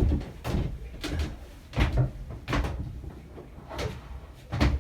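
Irregular knocks and clunks of hard objects being handled and set down in a small cabin, about eight in a few seconds; no power tool running yet.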